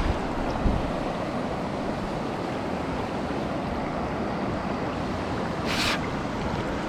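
Mountain stream water rushing steadily over rocks, a continuous even hiss. A short sharp noise cuts in about six seconds in.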